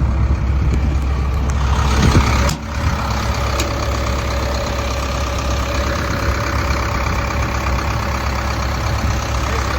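Kobelco SK210LC-10 excavator's diesel engine idling with a steady hum. There is a brief break about two and a half seconds in, after which it runs on evenly with a faint whine.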